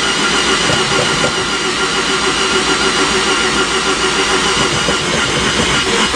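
1984 Mazda RX-7's freshly rebuilt 12A two-rotor rotary engine running steadily on the choke, just after starting, heard from inside the cabin.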